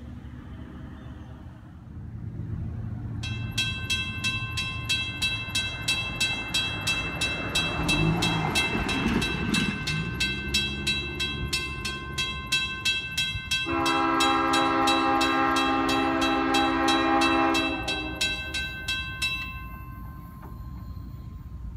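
Railroad grade-crossing bell ringing in steady rapid strokes as the crossing signals activate for an approaching train. About two-thirds of the way in, the approaching CSX locomotive's horn sounds one long blast of about four seconds over the bell.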